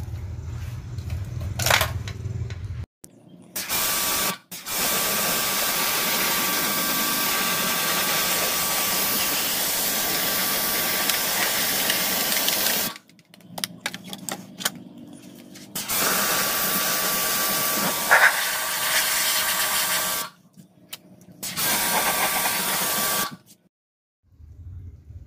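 Electric pressure washer spraying a hard jet of water onto a TV circuit board to wash it, in four bursts: a short one, a long one of about eight seconds, then two shorter ones. A steady whine runs under the hiss of the spray, and a low hum comes before the first burst.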